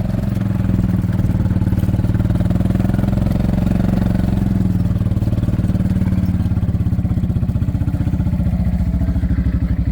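An engine running steadily at close range, with a low, even pulsing.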